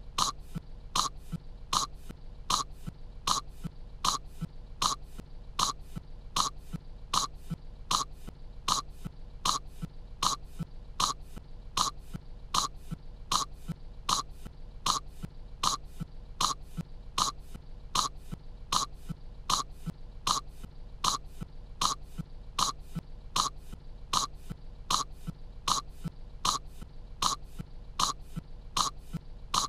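A young cartoon girl's short, dry coughs, repeated as a looped clip at an even pace of about three coughs every two seconds, each cough identical to the last.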